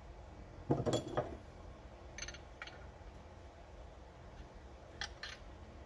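A short low vocal sound about a second in, then a few faint, scattered metal clicks as a 3M PPS cup adapter is tightened onto a gravity-feed paint spray gun.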